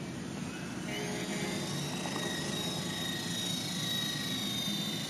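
Double Horse 9104 radio-controlled helicopter's electric motors running with a steady high whine over the rotor noise.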